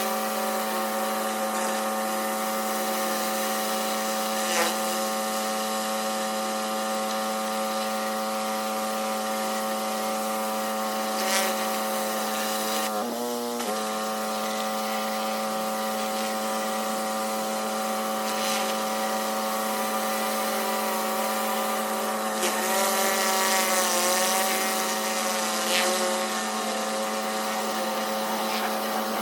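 Pressure washer running steadily while spraying a driveway, a constant motor hum with the hiss of the water jet. About thirteen seconds in the pitch dips briefly, and around twenty-three seconds in the spray hiss grows louder for a couple of seconds.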